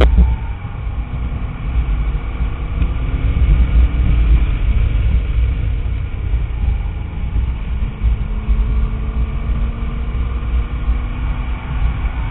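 2005 Corvette C6 Z51's LS2 V8 running under load on track, heard from inside the cabin over a heavy low rumble of wind and road noise. The engine note climbs slowly in pitch through the second half as the car accelerates.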